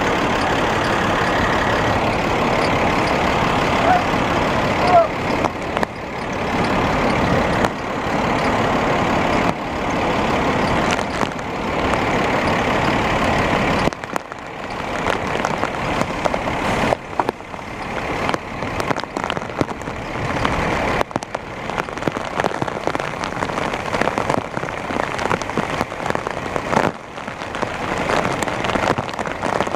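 Steady rush of wind and rain, even for about the first half and then rising and falling in gusts.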